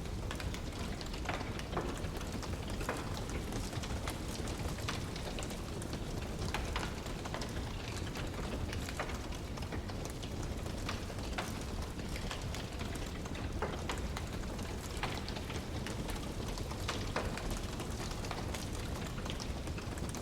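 Wood fire crackling, with frequent irregular sharp pops and snaps over a steady low rushing noise.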